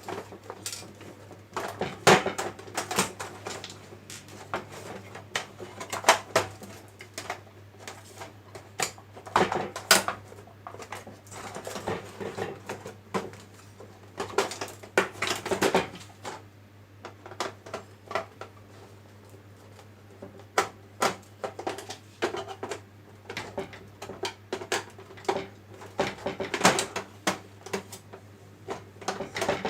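Irregular clicks, taps and small clatters of hard metal and plastic parts being handled and set down while working inside a projector, over a steady low hum.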